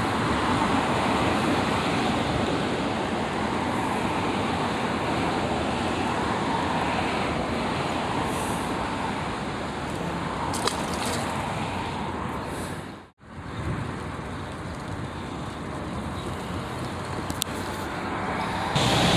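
Steady rushing background noise with no clear pitch, broken by a brief drop-out about thirteen seconds in.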